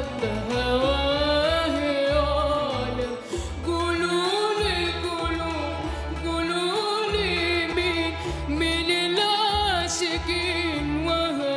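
A girl's solo singing voice in an Arabic song, with long ornamented runs that glide and waver in pitch, over a low rhythmic backing.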